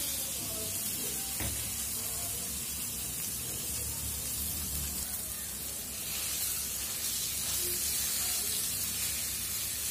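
Mashed potato and fried onion, chilli and coriander sizzling steadily in a pan on a gas stove, with a wooden spatula turning the mix and one faint knock about a second and a half in.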